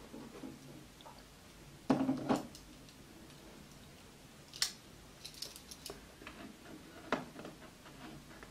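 Cardboard smartphone boxes being handled and set down on a desk mat: a few soft knocks and light clicks. The loudest knock comes about two seconds in, and another about seven seconds in.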